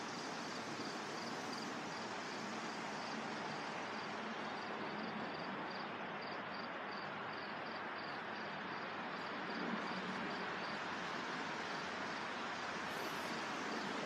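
Wind rustling through the leaves of large trees, a steady hiss of foliage. A faint high-pitched chirp repeats about three times a second through most of it, then stops.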